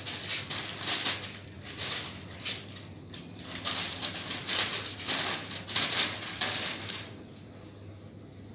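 Large paper sheets rustling and crinkling as they are handled, in irregular bursts that die down about seven seconds in.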